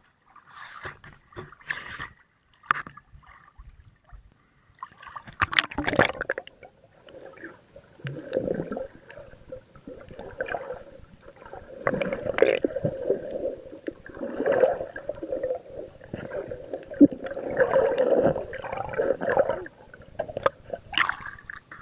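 Water sloshing and bubbling, heard muffled with the camera underwater, in irregular surges from about five seconds in. Before that come a few scattered knocks and splashes.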